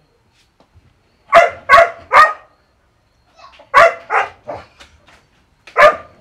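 A dog barking in short, sharp barks: a quick run of three, a second run of three, then one more single bark near the end.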